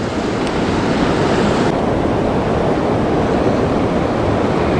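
Steady rush of fast-flowing creek water, a loud even noise; its upper hiss drops away suddenly about two seconds in.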